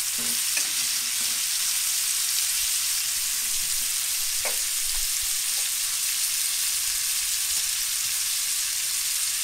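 Bone-in pork chops, garlic and melting butter sizzling steadily in a hot cast-iron skillet, with a few brief scrapes of a utensil pushing the butter around the pan.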